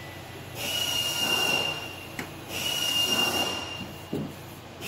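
Pneumatic pop-rivet gun cycled twice against an aluminum canoe gunwale to set a 1/8-inch rivet. Each burst is about a second and a half of air hiss with a high steady whine, and there are short clicks between them.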